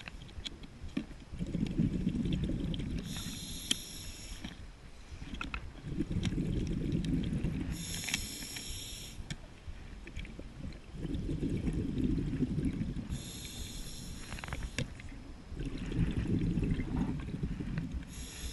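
A scuba diver breathing underwater through a regulator, about once every five seconds. Each breath is a short, high hiss as air is drawn through the regulator, followed by a longer, low rumble of exhaled bubbles.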